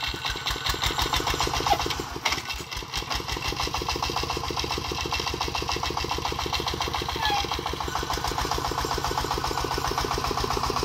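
Single-cylinder diesel engine of a công nông farm tractor-truck running with a steady, rapid chugging, briefly quieter about two seconds in.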